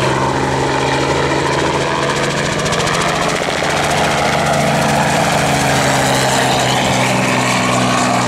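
Robinson R44 helicopter flying low and close: a steady drone of rotor and engine with a rapid, even beating of the blades.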